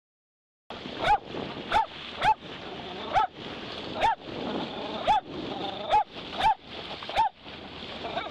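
A dog barking again and again, short sharp yelps about once a second, over a steady rush of water.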